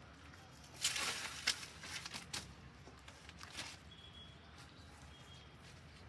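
An Alexandrine parakeet feeding on a heap of green pod-bearing stems: a burst of crackling rustle about a second in, then a few scattered crunches and clicks as it bites and pulls at the pods.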